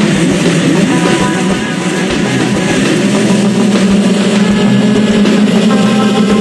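A full field of motocross bikes held at high revs together at the start gate, a loud, dense, steady engine drone.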